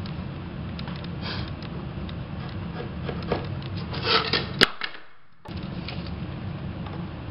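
Laminate flooring pieces handled on a plywood stair tread: light rubbing and small knocks of wood on wood over a steady low hum. About four seconds in comes a short burst of scraping and clatter that ends in a sharp click, and the sound then cuts out for about half a second.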